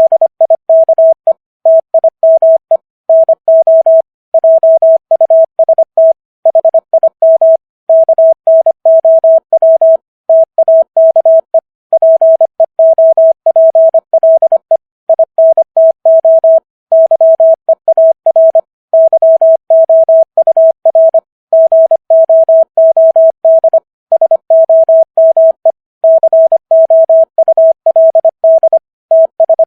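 Morse code sent at 25 words per minute: a single steady mid-pitched beep keyed rapidly on and off in dots and dashes, spelling out common English words with short silent gaps between words.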